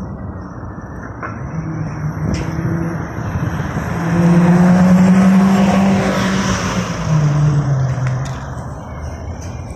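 Road traffic passing close: a van's engine hum swells as it drives by, loudest about four to six seconds in, then drops in pitch and fades as it moves away. A city bus is coming in toward the stop near the end.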